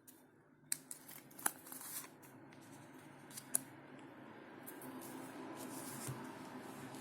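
Tarot cards being handled and laid down on a table: a handful of light snaps and slaps in the first few seconds, over a faint steady background hiss.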